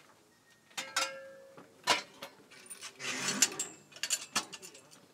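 A series of sharp metallic clicks and clanks, with a short rushing noise about three seconds in.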